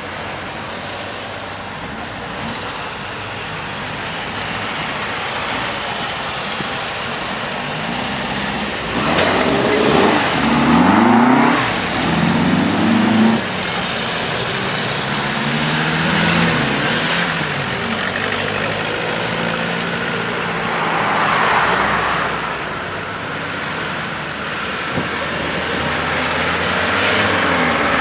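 Classic air-cooled Volkswagen Beetles and VW T3 vans driving past one after another, each engine rising then falling in pitch as it goes by. The loudest pass comes about a third of the way in, with smaller ones later.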